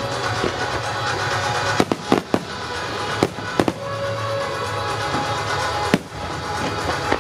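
Fireworks of a starmine display going off in a series of sharp bangs: a quick cluster about two seconds in, two more near three and a half seconds, and a single one near six seconds, over accompanying music.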